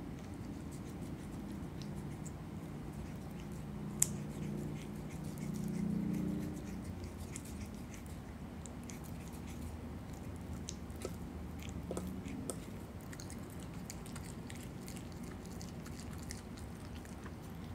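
Virginia opossum chewing and tearing at a rotisserie chicken: scattered small crisp clicks and crunches, with one sharp snap about four seconds in.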